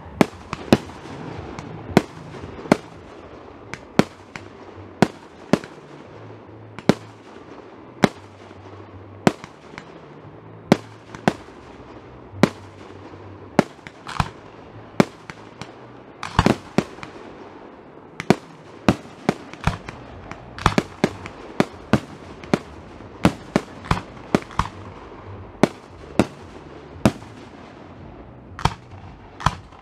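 Fireworks display: aerial shells bursting in a steady run of sharp bangs, about one to two a second, each trailing off in an echo.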